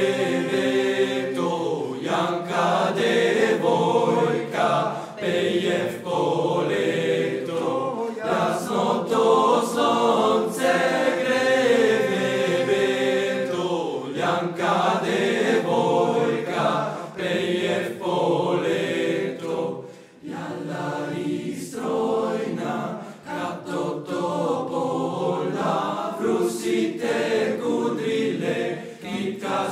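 Young men's choir singing an Eastern European folk song in an odd meter, the voices dipping briefly about two-thirds of the way through.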